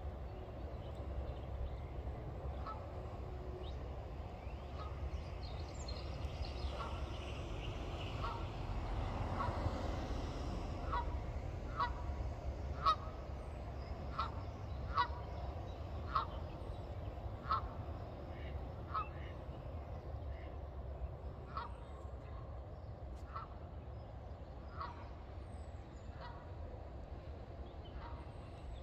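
Geese honking: a string of short, sharp honks, faint at first, then louder and about one a second from roughly ten seconds in, thinning out near the end, over a steady low rumble.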